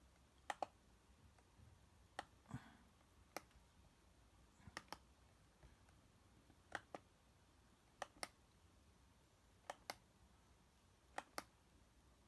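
Computer mouse button clicking, quiet and mostly in pairs a fraction of a second apart, every second or two, as installer and folder windows are worked through. There is one duller knock between the clicks a couple of seconds in.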